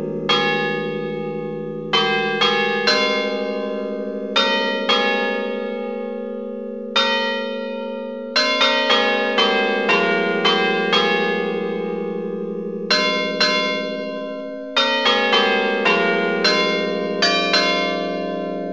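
Several large church bells of different pitches being struck in an irregular sequence, some strokes in quick clusters and others a second or two apart. Each stroke is followed by long ringing and a low hum that overlaps the next, heard close up in the belfry.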